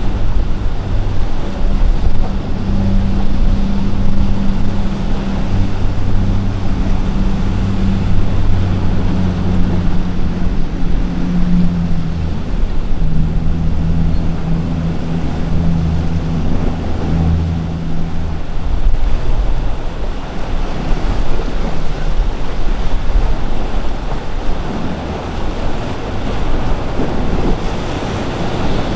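Azimut flybridge motor yacht's engines running at speed, a low steady hum over the rush of its wake and the breaking waves. About two-thirds of the way through the engine hum falls away, leaving the wash of surf and wind buffeting the microphone.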